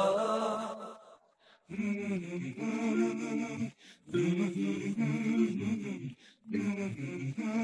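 Wordless a cappella male vocals sung in short phrases of about two seconds, separated by brief breaks: the vocal interlude of a voice-only nasheed.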